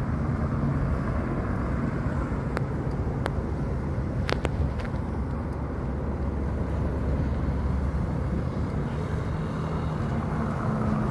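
Motor vehicle traffic on the road: a steady low engine and road rumble, with a few sharp clicks a few seconds in.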